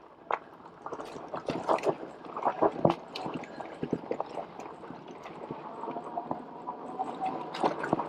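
HAOQI Cheetah full-suspension e-bike riding over rough, steep trail ground: an irregular run of knocks, clicks and rattles from tyres, chain and frame.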